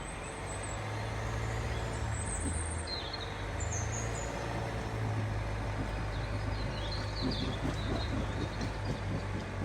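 A vehicle engine running with a steady low hum that comes in about half a second in, while small birds chirp now and then over it.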